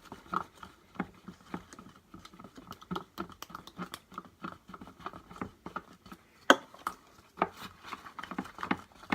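Slime-making containers and bottles being handled on a tabletop: irregular light taps and clicks, with a sharper click about six and a half seconds in.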